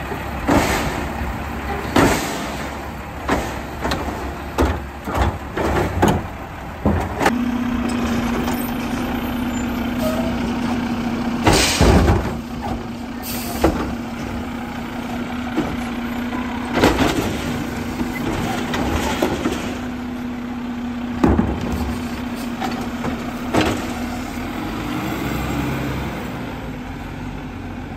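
Automated side-loader garbage truck's arm gripping, lifting and dumping wheeled trash carts over the running diesel truck: a clatter of knocks, then a steady hydraulic hum with loud bangs as the carts are lifted and slammed against the hopper.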